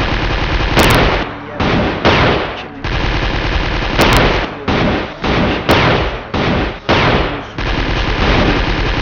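Automatic gunfire in repeated bursts of about a second each, with short gaps between them.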